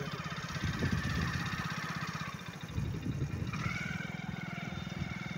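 Motorcycle engine running steadily as the bike rides along the road. About three and a half seconds in, a steady high tone joins it and holds.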